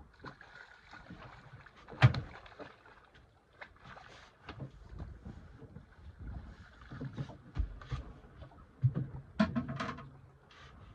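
Knocks and rattles on a small boat as a wrasse is played and netted: one sharp knock about two seconds in, then a cluster of knocks and rattles near the end as the landing net with the fish comes aboard.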